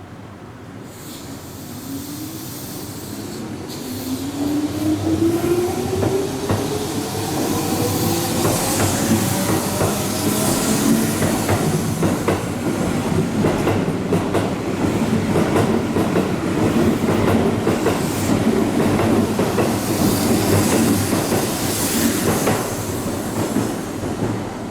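Keihan electric train accelerating past: the traction motor whine rises steadily in pitch over roughly the first ten seconds as it grows louder, followed by continuous wheel clatter over the rail joints.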